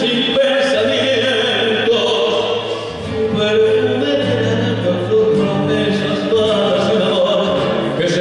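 Music: a song with singing over instrumental accompaniment, with sustained notes and a bass line that changes every second or so.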